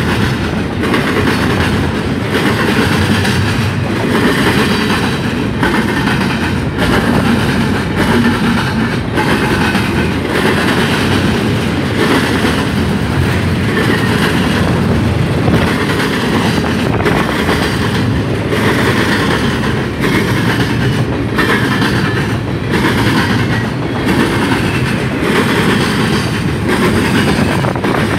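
Double-stack intermodal container train's well cars rolling past: a loud, steady rumble of steel wheels on rail, with repeated clickety-clack as the wheel sets cross rail joints.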